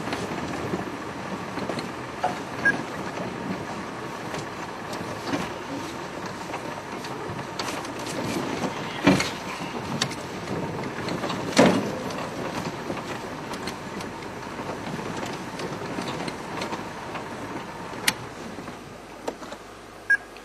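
4x4 game-viewing vehicle driving off-road: engine running and the body rattling, with two loud knocks near the middle as it jolts over rough ground.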